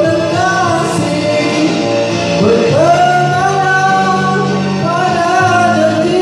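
A song: a voice singing a melody over instrumental backing, sliding up into a long held note about two and a half seconds in.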